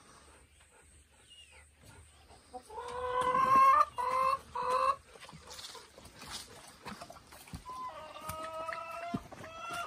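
Brown hens calling: a loud, drawn-out squawk rising slightly in pitch about three seconds in, followed by two short calls, then another long held call near the end.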